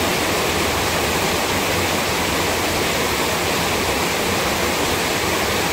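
A steady, loud rushing noise like pouring water, spread evenly from low to high pitches and unbroken throughout.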